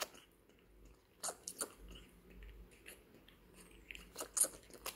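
Baby raccoon suckling milk from a feeding bottle: faint, irregular clicks and smacks of its mouth working the nipple.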